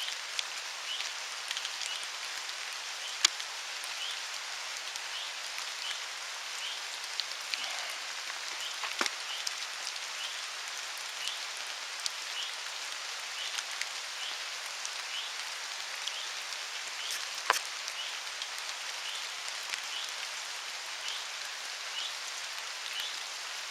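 Steady rain falling, with a few louder single drops striking close by about three seconds in, around nine seconds and near the end. A faint high chirp repeats about once a second underneath.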